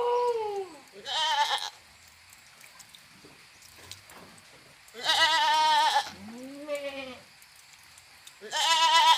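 Goat bleating over and over. A call carries over from just before. Short, quavering bleats come about a second in, around five seconds and near the end, and a smoother, lower, arching bleat follows just after the middle.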